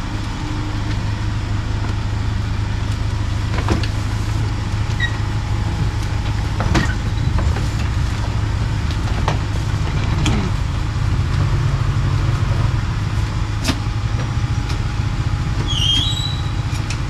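Ambulance engine idling with a steady low hum, while a metal-framed stretcher is loaded into the rear compartment with several sharp clanks and knocks.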